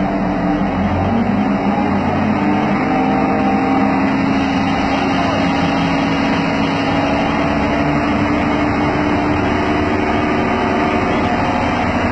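Diesel engine of a MAN/DUEWAG VT 610 diesel multiple unit running steadily, a loud continuous drone with several held tones that drift only slightly in pitch.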